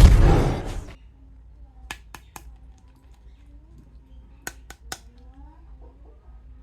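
A loud noisy burst that dies away within the first second, then six sharp clicks in two quick groups of three, as a plastic action figure is handled.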